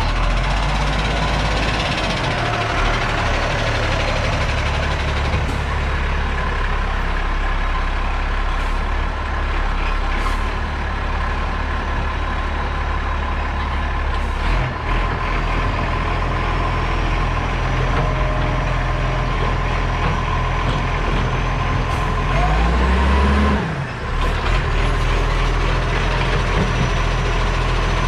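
Garbage truck's diesel engine running steadily, revving up and back down briefly about 23 seconds in.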